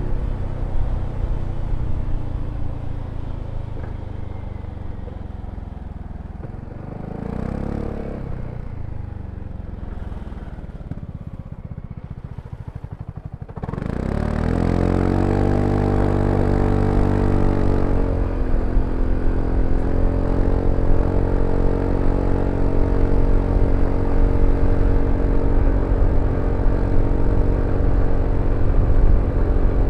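BMW C400X scooter's single-cylinder engine under way. It slows and falls to low revs for several seconds. About fourteen seconds in, it pulls away hard, revs climbing for a few seconds and then holding steady under the continuously variable transmission as it cruises.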